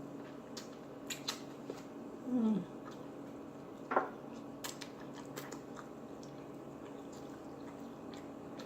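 Eating honey buffalo wings close to the microphone: chewing and biting with scattered wet clicks and smacks. There is a short falling hum about two and a half seconds in and a brief squeak near four seconds.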